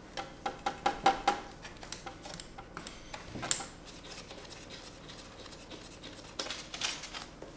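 Ratchet wrench clicking in short runs while a transmission-to-engine bolt is worked loose. There is a quick run of clicks in the first second or so, a single sharp click about three and a half seconds in, and another run of clicks near the end.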